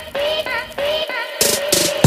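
Background music: a short, high sung phrase repeats about twice a second, and drum hits come in a little before the end.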